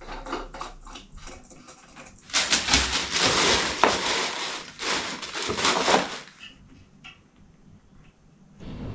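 Rustling and crinkling as lamp packaging and parts are handled during assembly. The sound is loudest in two stretches in the middle, with light clicks and knocks before and after.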